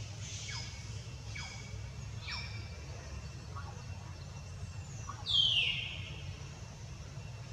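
Several short, high calls that fall in pitch, the loudest a bit over five seconds in, over a steady low rumble.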